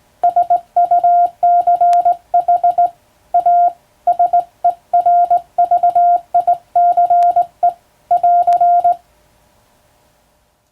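Morse code keyed by hand on a telegraph key, heard as a single steady beep tone switched into dots and dashes in character groups. The sending stops about nine seconds in.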